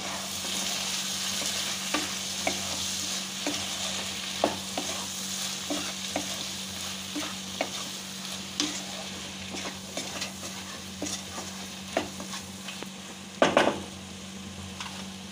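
Taro stolons and shrimp frying in oil in a non-stick wok, sizzling steadily as a spatula stirs the freshly added spice powders through them. Scattered clicks and scrapes of the spatula on the pan run throughout, and there is one louder knock near the end. The sizzle is strongest in the first few seconds.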